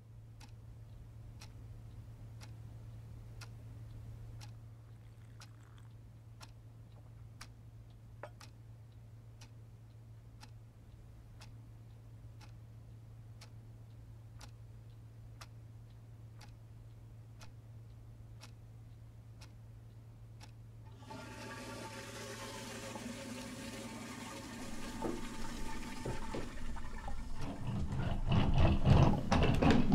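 A clock ticking about once a second over a low steady hum. About two-thirds of the way in, a hiss with several steady tones comes in and grows louder, with a heavy low rumble near the end.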